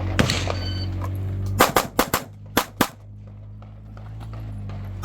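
Rapid string of 9mm pistol shots from a Glock 45: six shots in about a second and a quarter, starting about a second and a half in. A steady low hum runs before the first shot.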